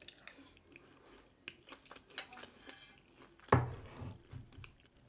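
Close-up mouth sounds of a person chewing grilled pork and rice, with small wet clicks and smacks and light clicks of a spoon. A single louder thump comes about three and a half seconds in.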